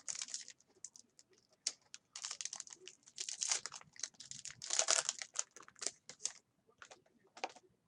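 Plastic wrappers of Panini Prizm football card packs crinkling and tearing open, in several irregular crackly bursts with short pauses between.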